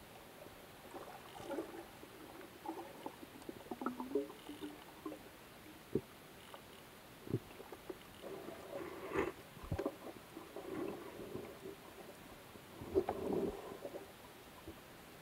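Underwater sound picked up through a camera housing: a faint steady hiss with scattered sharp clicks and knocks and short bursts of bubbly gurgling.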